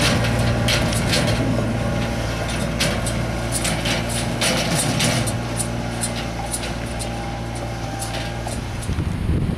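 Side-by-side utility vehicle's engine running steadily as it pulls a metal trailer away up a gravel track, slowly fading, with many sharp clicks and crunches over it. The engine sound cuts off shortly before the end.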